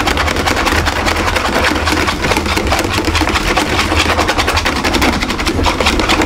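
Coil whisk beating runny martabak batter in a metal bowl: a fast, steady clatter of the wire coil striking the bowl's side and bottom.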